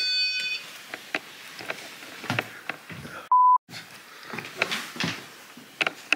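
An electronic ghost-hunting device's steady multi-tone alarm stops about half a second in, leaving scattered faint clicks and knocks. About three seconds in comes a short, loud, single-pitch censor bleep.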